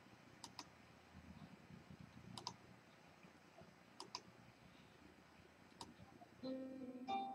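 Faint computer mouse clicks, mostly in quick pairs, about every two seconds. Music starts about six and a half seconds in.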